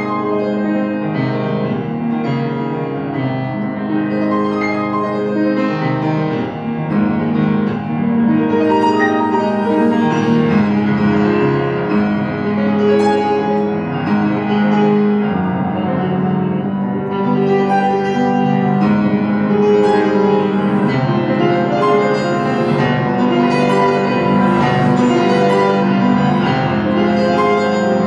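Grand piano played solo, a loud, continuous classical passage of densely overlapping notes.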